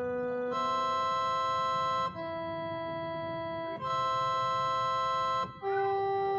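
Background music of slow, held organ chords, each chord sustained evenly and changing every couple of seconds.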